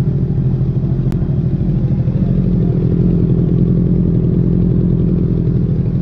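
Motorcycle engine running steadily close by, its note lifting slightly for a couple of seconds in the middle.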